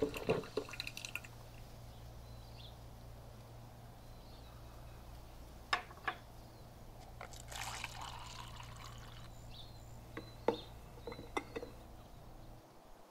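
Coffee poured from a thermos carafe into a mug, a trickling pour of about two seconds in the middle, with a few light clinks and knocks of crockery on the counter. A low steady hum runs underneath and stops near the end.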